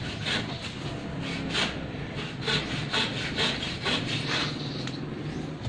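Hand saw cutting wood: a series of uneven rasping strokes, roughly two a second.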